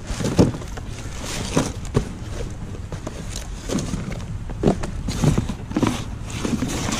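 Cardboard box flaps and plastic trash bags rustling, crinkling and scraping as they are rummaged through by hand, in irregular short bursts with a few knocks.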